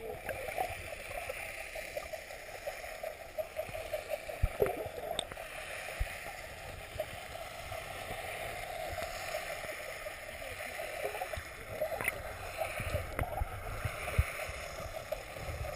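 Muffled underwater sound heard through a submerged camera in shallow sea water: a steady wash of moving water with a fine crackle, and a few soft knocks.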